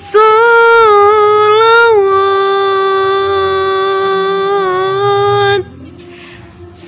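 A woman singing sholawat, the Islamic devotional chant praising the Prophet, solo: one long held note that wavers a little in pitch over its first two seconds, then stays level until it breaks off about five and a half seconds in.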